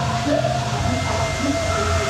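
Dark ambient horror score: a steady low drone under a bed of hiss, with faint wavering tones drifting above it.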